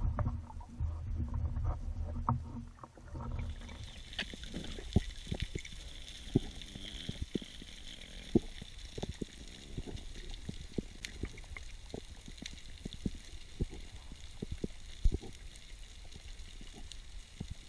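Underwater ambience heard through an action camera's housing: for the first few seconds a low water rumble and sloshing at the surface, then, after a cut, a quiet steady hiss scattered with many irregular sharp clicks and crackles.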